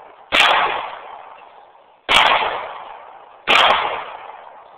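Three shots from a Glock pistol, roughly a second and a half apart, each a sharp crack followed by a fading echo.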